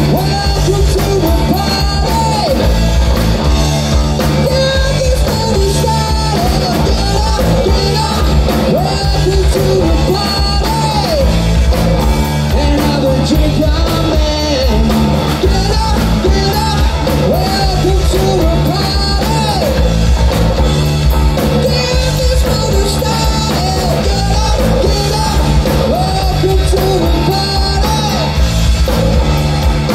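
Rock band playing live, loud: electric guitars, bass guitar and drum kit under a male lead singer.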